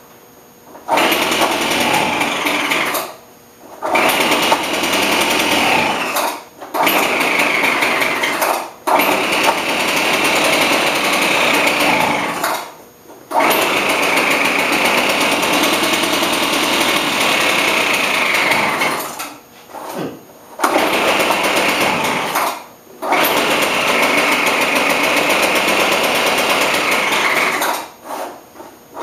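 Small two-stroke engine of a Craftsman leaf blower running cold and erratically. Every few seconds it cuts out almost completely for a moment and then catches again. The cause, found afterwards, is a Walbro carburettor with its metering diaphragm and gasket fitted in the wrong order.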